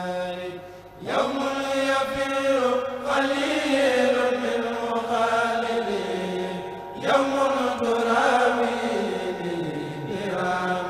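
A Mouride kourel of young men chanting a khassida together, unaccompanied voices. The chant moves in long held notes that slide slowly down, with a new phrase starting about a second in and again about seven seconds in.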